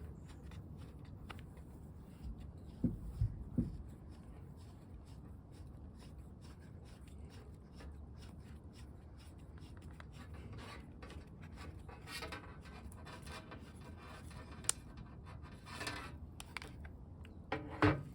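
Faint handling sounds of a turn signal light being pushed into its mounting hole in the front plate: a few soft knocks about three seconds in, then scratchy rubbing with a sharp click, and a couple more knocks near the end.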